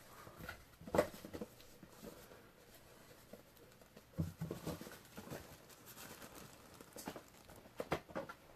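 Handling noises from a camera case and cardboard box packaging: a few scattered clicks and knocks, about a second in, around four seconds, and twice near the end, with light rustling in between.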